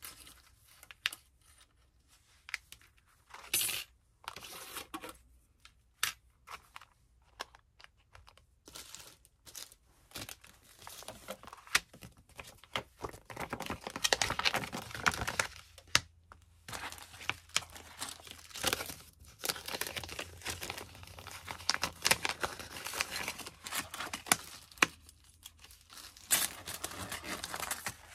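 Rustling and crinkling of envelopes and sheets being handled, with many small irregular clicks and taps, as thin metal cutting dies are sorted into them. The handling is busiest in the middle of the stretch.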